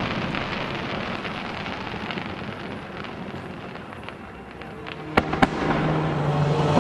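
Fireworks crackling, with two sharp bangs in quick succession about five seconds in; a low steady tone of music comes in near the end.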